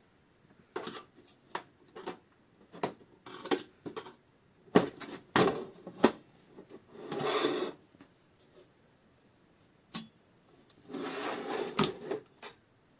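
Metal clock parts being handled and worked with tools during disassembly: a string of sharp clicks and knocks, with two longer rubbing noises about seven and eleven seconds in.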